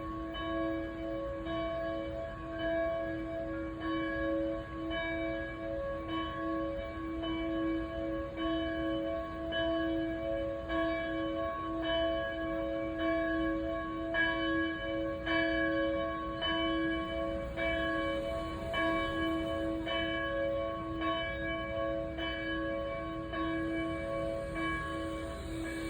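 Church bells ringing for noon, struck over and over a little more than once a second, each stroke adding to a ring that hangs on between strokes.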